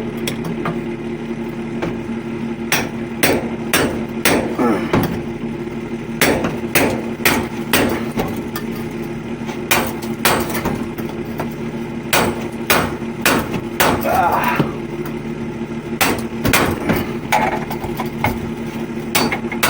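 Irregular series of sharp hammer blows, a couple of dozen over the stretch and starting a few seconds in, over a steady machine hum.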